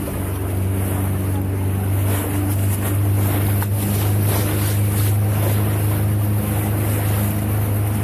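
Speedboat engine running steadily at speed, a constant low hum, with water rushing and splashing along the hull and wind buffeting the microphone.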